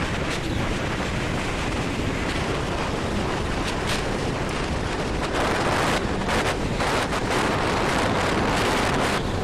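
Wind buffeting the microphone: a steady rushing noise with a fluttering low rumble, growing a little stronger in the second half.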